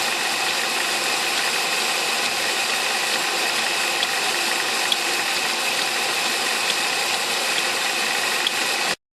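Ford Mondeo III 2.0 Duratec engine running, its steady noise broken by a few sharp, irregular clicks. This is the chaotic, uneven, intermittent knock that the owner suspected might come from the timing chain tensioner or chain. The sound cuts off abruptly near the end.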